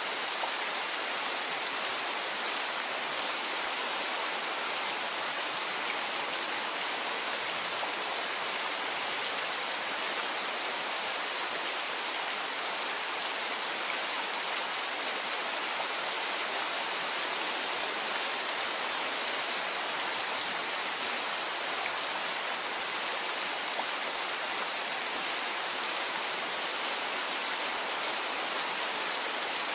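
Steady rain, an even hiss that holds at one level throughout.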